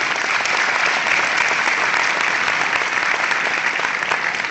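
Audience applauding, a dense steady clapping that eases a little near the end.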